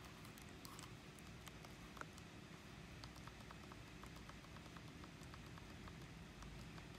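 Faint clicks of a Sony NEX-3 camera's rear control wheel being turned step by step through the menu, about three small ticks a second, with a slightly sharper click about two seconds in, over a low hum.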